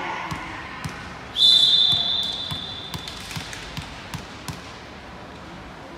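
Volleyball bounced on the gym floor, about two thuds a second. About a second and a half in, the referee's whistle sounds one long blast that fades out, the signal to serve.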